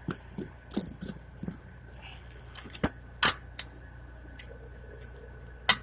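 Sharp, irregular metallic clicks and clanks of a lug wrench being fitted onto and knocking against a car wheel's lug nuts, with the loudest strikes about three seconds in and near the end.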